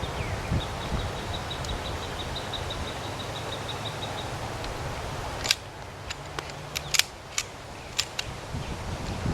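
Outdoor wind noise, with a fast row of faint ticks in the first half, then a sudden sharp click a little past the middle followed by about half a dozen more sharp clicks, one of them louder than the rest.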